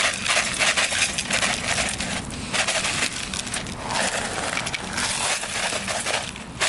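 Dry shredded hash browns poured into a metal pan: a dense, continuous patter of small pieces hitting and rattling in the pan.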